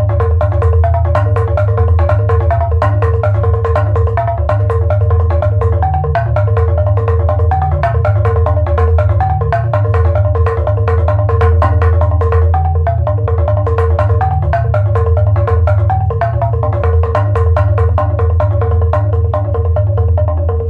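Live improvised percussion music: tuned mallet percussion plays a quick repeating figure of struck notes, about three a second, over a steady low drone.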